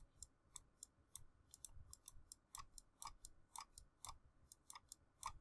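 Faint computer mouse clicks, about three a second at an uneven pace.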